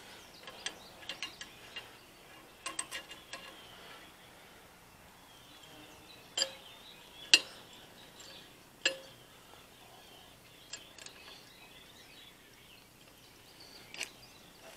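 Frost-free yard hydrant's metal lever handle and linkage being worked by hand: scattered sharp metallic clicks and clinks, the loudest about seven seconds in. The handle will not go all the way down.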